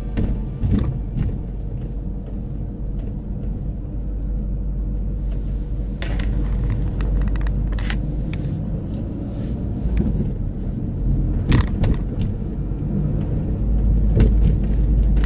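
Mini Cooper convertible driving slowly, heard from inside the car: a steady low rumble of engine and road noise, with several short sharp knocks in the second half.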